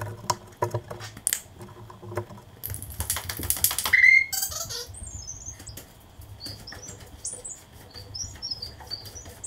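A heavy workbench being moved on a concrete floor: a few knocks, then a loud scraping drag about three seconds in that ends in a short squeal. Small birds chirp over and over through the rest.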